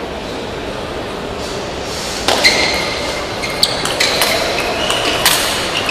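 Table tennis rally: the ball striking rackets and the table in a run of sharp knocks, each with a short ringing ping. The knocks start about two seconds in, after a steady hall murmur, and come at an uneven pace.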